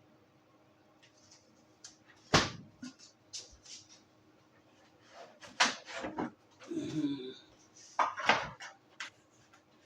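Kitchenware being handled: a string of separate sharp knocks, clinks and clatters of dishes and pans being set down and moved, the loudest about two and a half seconds in and again near five and a half and eight seconds.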